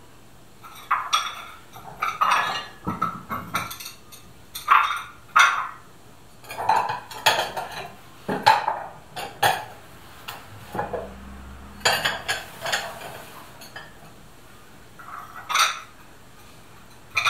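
Stacks of Onta-ware stoneware bowls being lifted and set down, the ceramic clinking and knocking against itself in irregular clatters. A quieter lull of about two seconds near the end is followed by one more clink.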